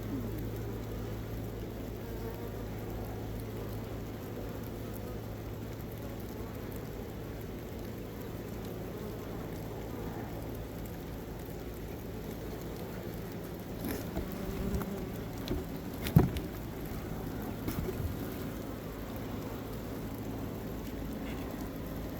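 Honey bees buzzing in a steady hum around an open hive. A handful of knocks and bumps come past the middle, one of them sharp and loud.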